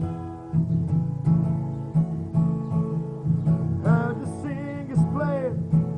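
Acoustic guitar strummed in a steady rhythm, playing a rock cover. A voice comes in singing about four seconds in.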